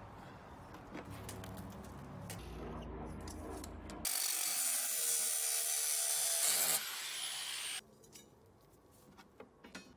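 Angle grinder cutting 10mm steel rebar: quieter handling sounds for about four seconds, then a loud, steady cutting hiss lasting about three and a half seconds that ends with the disc's pitch falling briefly before it stops.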